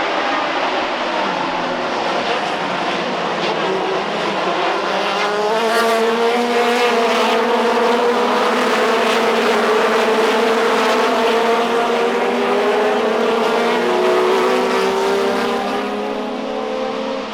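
Procar 4000 race cars' inline six-cylinder engines racing past, more than one car at a time, their pitch rising and falling as they accelerate and shift; loudest from about six to fourteen seconds in.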